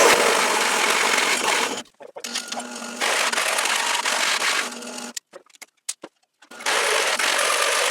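Electric drill running a hole saw through steel angle, cutting in bursts. It drops out briefly about two seconds in, then stops for over a second just past the middle, with a few clicks, before cutting again.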